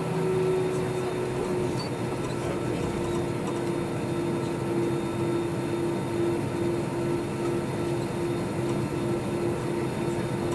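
Airbus A320 cabin noise with the CFM56 engines at low power while taxiing: a steady rumble and hiss. A single tone running underneath begins pulsing evenly, about twice a second, around four seconds in.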